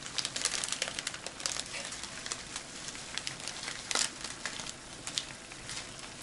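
Crinkling and rustling of a plastic pack of misua noodles being opened and handled, irregular throughout, busiest in the first second or so, with one louder crackle about four seconds in.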